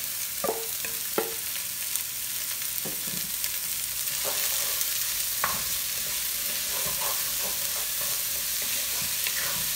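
Diced onion and bell peppers sizzling in hot olive oil in a cast iron Dutch oven, the sizzle growing a little louder after a few seconds. A few sharp knocks in the first two seconds as the vegetables are tipped in from a metal bowl, then a wooden spoon stirring them in the pot.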